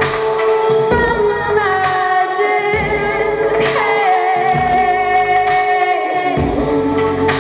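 A woman singing live into a microphone over electronic backing, with sustained synth tones and a low pulsing bass.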